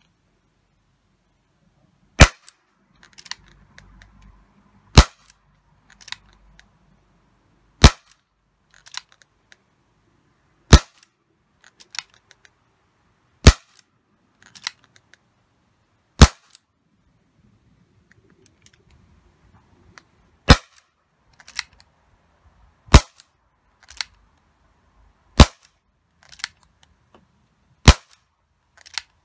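ASG Dan Wesson CO2 airsoft revolver firing 6 mm glass BBs: ten sharp shots about two and a half to three seconds apart, with one longer pause midway. Fainter clicks come between the shots.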